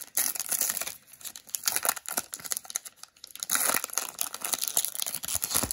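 A foil baseball-card pack wrapper being torn open and crinkled by hand, a dense run of quick crackles and rips.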